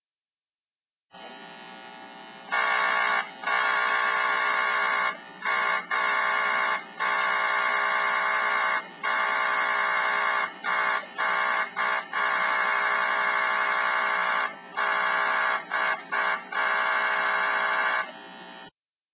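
American Flyer electronic whistle sounding in a series of about a dozen blasts, some long and some short, broken by quick gaps, over a steady hiss. The control is working again after its two high-voltage capacitors were replaced.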